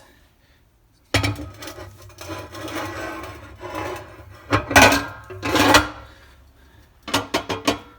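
Welded metal drip pan being slid into the base of a floor drill press, scraping and rubbing against it with two louder scrapes in the middle, then a quick run of sharp knocks near the end as its welded-on bolts drop into the slots and lock it in place.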